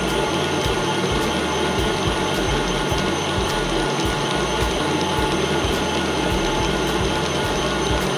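Electric mixer running at a high setting, a steady mechanical whirr with a faint regular tick about twice a second.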